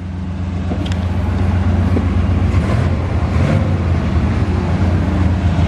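A 1984 Pontiac Parisienne station wagon's engine idling steadily with a low, even hum. It is being left running to charge a battery that has been going flat.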